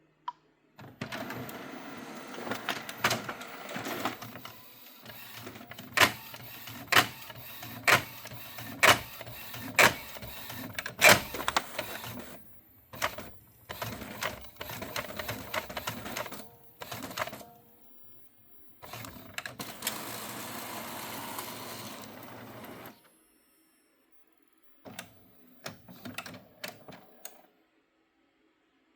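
Epson L15160 inkjet printer running a print job, with a series of loud sharp knocks about once a second among its feed and carriage noise. This is the abnormal noise that the owner blames for the misaligned printing. A steadier stretch of running noise comes later, then a few last clicks.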